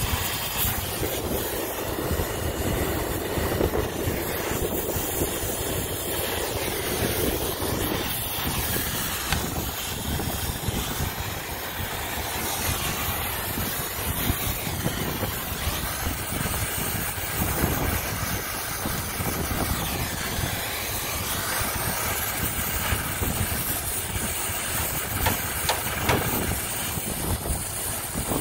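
Oxy-acetylene brazing torch flame running steadily at a joint on the refrigeration compressor's piping, dropping away about eight seconds in. A steady broad background noise with a low rumble continues after it.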